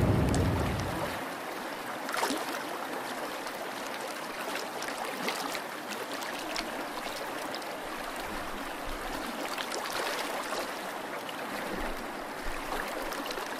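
Background music fades out in the first second. Then water trickles and gurgles steadily around a sinking cardboard model ship, with scattered small pops and drips as it takes on water.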